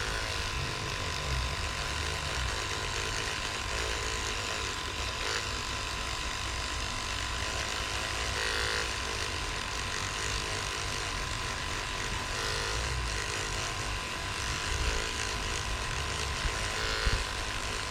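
Electric toothbrush running a 3D-printed sanding head with a fine foam sanding pad, buzzing steadily with a constant whine as it sands down the seam line on a polyurethane lure.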